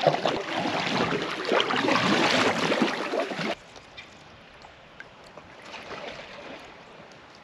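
Water rushing and splashing around a kayak being paddled through a creek obstacle, loud and crackly. It cuts off suddenly about three and a half seconds in, leaving a much quieter calm-water background with a few faint small sounds.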